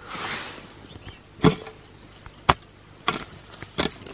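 A short rustle, then four sharp knocks at uneven spacing, roughly a second apart.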